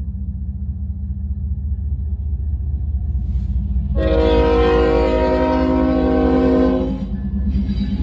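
Diesel freight locomotive rumbling steadily with its engine pulsing, and one long air-horn blast, a chord of several tones, starting about halfway through and lasting about three seconds.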